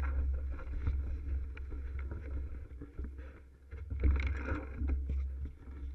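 Wind rumbling on the bike-mounted GoPro microphone while a mountain bike rolls over a dirt trail covered in dry leaves, with scattered crackles and rattles from the tyres and bike. The noise grows busier about four seconds in.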